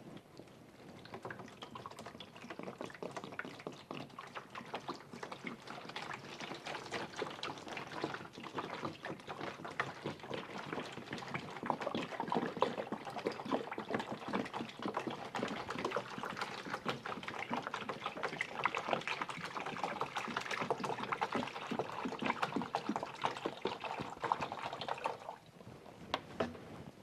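Liquid being poured steadily into a container, with a splashing, crackly noise. It builds over the first few seconds and stops abruptly near the end.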